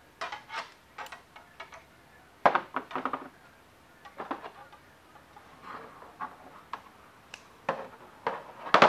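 Irregular clicks, taps and clinks of coat-hanger wire rings being bent with pliers and handled. The loudest knocks come about two and a half seconds in and just before the end.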